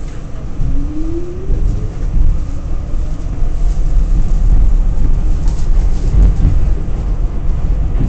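R46 subway car running on the track, heard from inside the car: a loud, steady low rumble of wheels and car body, with a brief rising whine about a second in.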